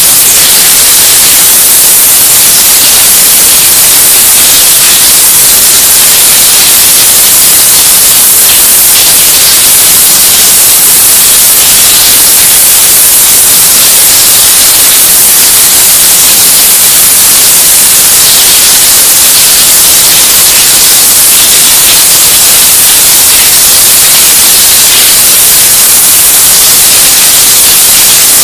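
Deliberately overdriven 'estourado' meme audio: a constant, loud, clipped static hiss pinned at full volume, with no distinct events. It is the blown-out soundtrack of a shower's running water, distorted past recognition.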